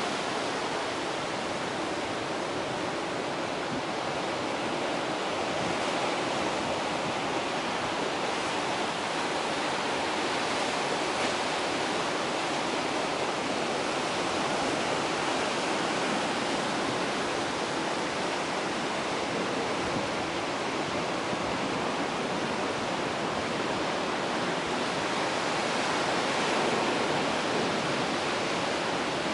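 Pacific Ocean surf breaking and washing over a flat, rocky shoreline: a steady rush of water.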